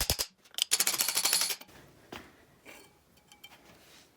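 Two short bursts of rapid metallic clicking from hand work on engine parts, the second and louder one about a second in, followed by faint scattered clicks and handling noise.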